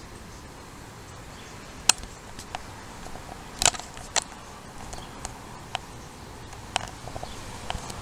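A European starling making sharp, irregular clicks, about half a dozen spread over several seconds, with a quick run of clicks a little before the middle.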